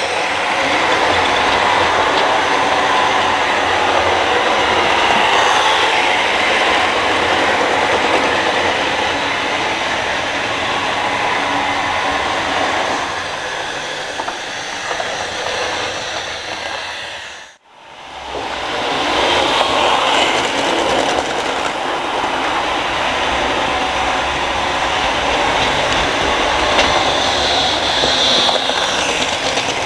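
HO-scale model trains running on the layout's track. The sound is steady and fairly loud, breaking off for a moment about two thirds of the way through, then carrying on.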